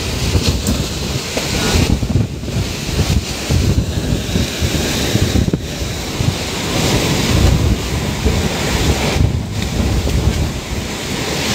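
Typhoon-force wind blowing hard and steadily, with wind-driven rain and heavy gusts buffeting the phone's microphone in a loud, low rumble.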